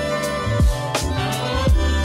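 Background music with a steady beat: sustained melodic tones over deep, booming kick-drum hits and crisp high percussion.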